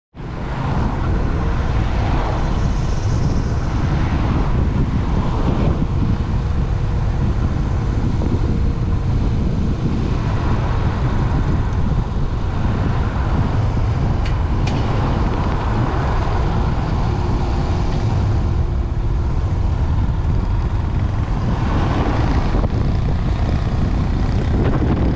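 A motorcycle riding along at steady speed, heard from on the bike: a continuous low engine drone mixed with road and air rush.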